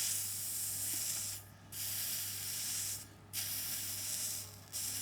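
Electropolishing brush fizzing and hissing against a stainless steel weld seam as current passes through the electrolyte, stripping the black TIG oxide. The hiss is steady, broken three times by short gaps, with a steady low hum underneath.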